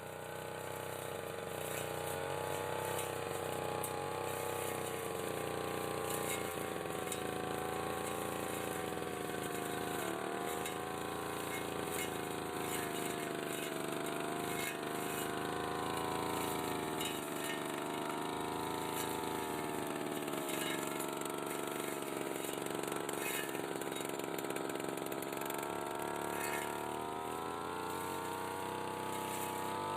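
Brush cutter engine running at high speed, its pitch sagging and rising several times as the propeller-style blade cuts into a hedge, climbing again near the end.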